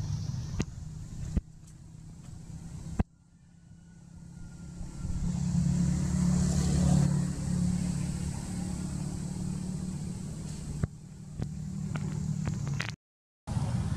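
Motor vehicle engine running nearby as a low steady hum, swelling louder in the middle as it passes and then easing off. The sound breaks off abruptly a few times.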